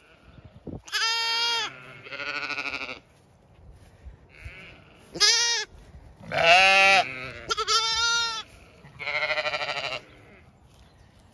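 Zwartbles lambs bleating six times: some calls high and clear, some quavering. A lamb is calling for its mother ewe.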